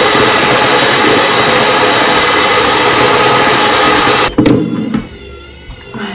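Electric hand mixer running steadily, its beaters whirring in a stainless steel bowl. It cuts off about two-thirds of the way through, followed by a knock and some quieter clatter.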